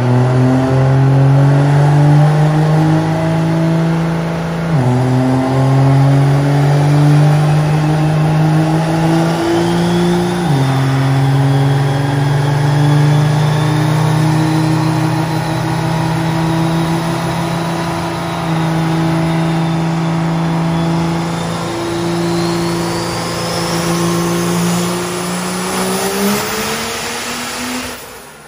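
Cummins diesel in a Dodge Ram making a full-throttle dyno pull. The engine note climbs, drops abruptly twice as the transmission shifts up, then climbs steadily under load with a high whine rising above it, and cuts off suddenly near the end.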